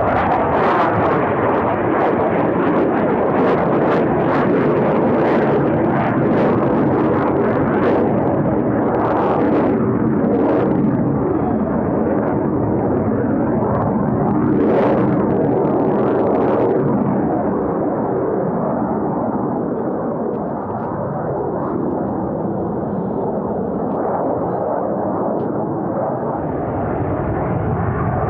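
Loud jet noise from two F/A-18 Super Hornets climbing at full power, with a harsh crackle through the first two-thirds that smooths out and eases a little after that.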